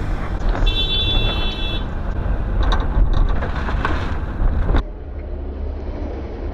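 Steady engine rumble and road noise of a car driving in traffic, heard from inside the car. A brief high steady tone sounds about a second in, and the sound changes abruptly about five seconds in.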